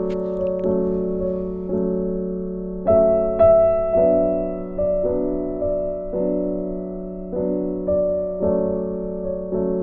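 Background music: soft piano or electric keyboard playing slow chords, a new chord struck about once a second and each fading away.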